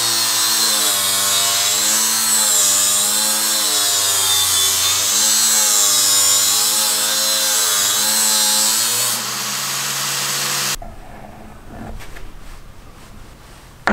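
Makita GA4033 angle grinder, rigged as a disc sander, running with a wooden block pressed to its sanding disc: a steady motor whine over a scratchy grinding noise, the pitch wavering as the pressure on the wood changes. About eleven seconds in it cuts off sharply, leaving faint rubbing.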